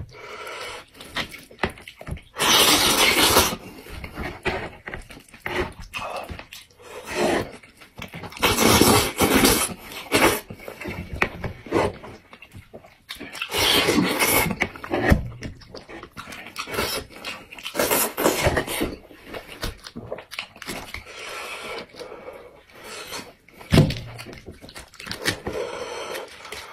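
Close-up eating sounds: loud sucking and chewing on boiled sheep's head meat pulled off the bone by hand, coming in repeated bursts of a second or two with quieter stretches between.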